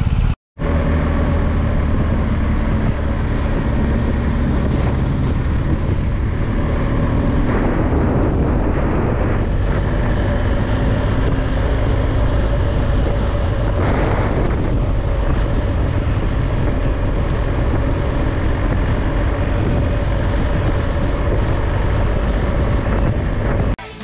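BMW R1250 GS boxer-twin motorcycle running steadily at road speed, heard through a bike-mounted microphone with heavy wind rush. The sound drops out briefly about half a second in and cuts off just before the end.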